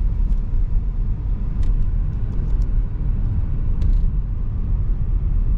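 Steady low rumble of road and engine noise inside a moving car's cabin, heard while the car drives along a highway.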